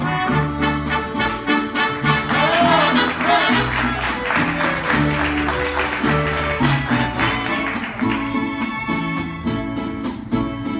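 Live mariachi band playing an instrumental introduction, with strummed guitars and plucked bass notes on a steady beat under the melody.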